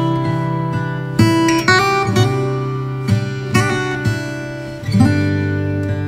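Background music: acoustic guitar playing sustained chords, with fresh strums or plucks every half second to a second.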